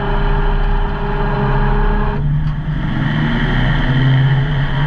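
Gyrocopter engine running steadily at the start of a takeoff, a loud drone whose tone shifts about two seconds in.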